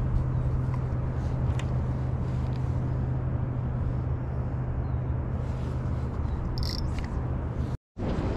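A boat motor humming steadily, with wind rushing over the microphone. The sound cuts out for an instant near the end.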